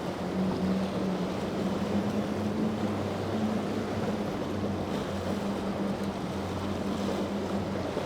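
Motorboat engine running at a steady pitch, over wind and water noise.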